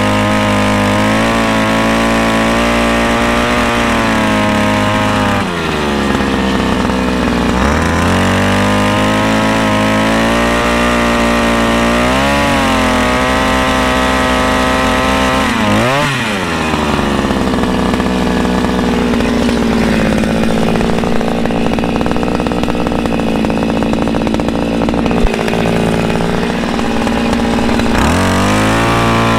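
Petrol earth auger's engine running at speed, its pitch dipping and climbing back several times. The auger's bit is driven through a centrifugal clutch, so it turns only when the engine is revved up.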